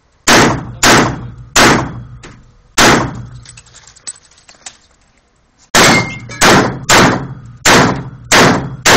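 Handgun shots in an indoor range, each followed by an echoing tail. There are four shots in the first three seconds, a pause of about three seconds, then six quicker shots about two-thirds of a second apart near the end.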